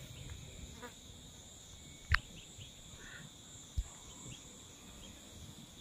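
Steady high-pitched chorus of insects, crickets or cicadas, with a single sharp click about two seconds in and a short low thump near four seconds.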